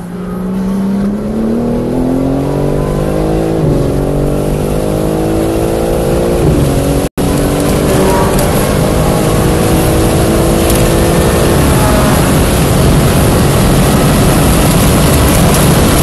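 BMW M3 Competition's twin-turbo inline-six under hard acceleration, its pitch climbing steadily with upshifts about four and seven seconds in. In the last few seconds the engine sinks under rising wind and tyre noise at very high speed, heard from inside the cabin.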